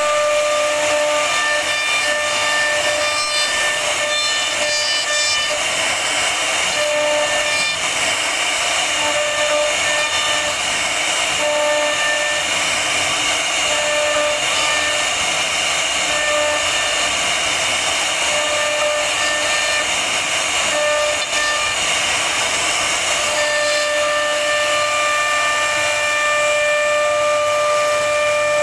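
CNC router spindle whining at a steady high pitch as its carving bit cuts relief into a wooden panel, over a steady rush of cutting noise. The whine breaks up through the middle and holds steady again near the end.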